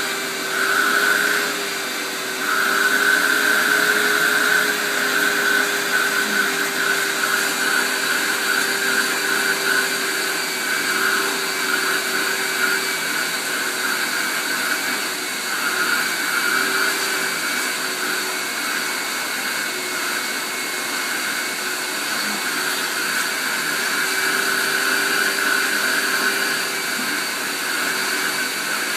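Vacuum cleaner running steadily as it is drawn over a greyhound's coat. Its whine and pitch waver slightly and dip in loudness now and then.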